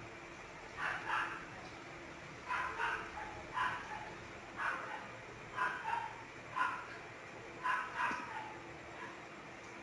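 Dog barking repeatedly, short barks about once a second, often two in quick succession.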